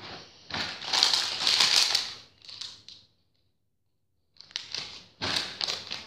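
Rummaging through a box of drone parts and packaging: plastic crinkling and rustling with small clicks and clatters, in irregular bursts. The sound cuts out completely for about a second near the middle.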